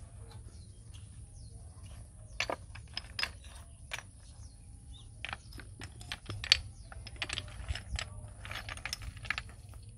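Thin stone cladding strips clinking and knocking together as they are picked from a pile and handled, in irregular sharp clicks that start about two seconds in and come more often toward the end, over a steady low hum.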